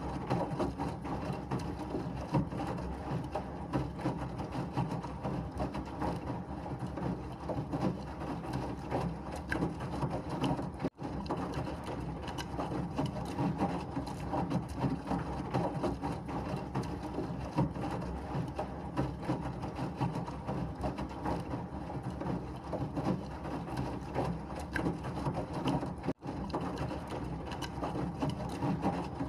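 Washing machine running steadily, a dense whirring noise with a fast clattering texture. It cuts out for an instant twice.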